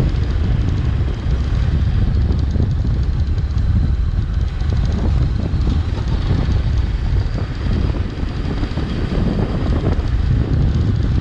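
Honda CB500X parallel-twin motorcycle riding over paving stones, heard from a camera at the dashboard: steady road rumble and engine under heavy wind buffeting on the microphone.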